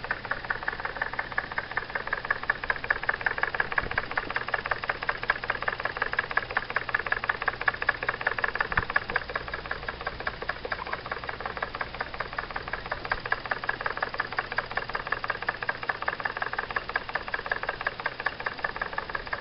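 Jensen #55 live-steam engine running steadily, driving a small novelty coffee grinder by belt, with a rapid, even mechanical beat.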